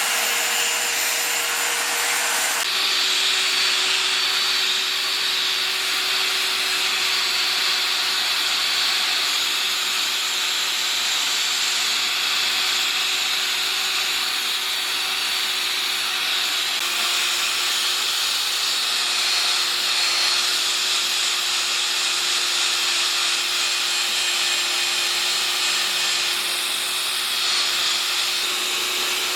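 Handheld power tool running steadily against wood, abrading the bowl, with a constant motor whine whose pitch steps slightly about three seconds in and again about halfway.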